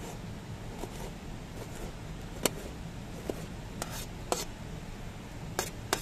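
About half a dozen sharp, short clinks of kitchenware being handled, irregularly spaced through the second half, the first the loudest, over a steady low background noise.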